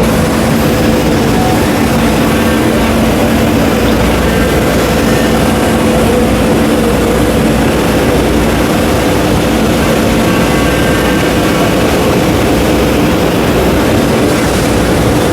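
CNC multi-spindle router running during machining: a loud, steady mechanical drone with a constant hum, no pauses or changes.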